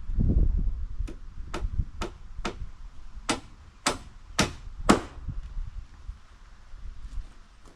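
A hammer driving a nail into deck lumber: about eight evenly paced strikes, roughly two a second, each harder than the last.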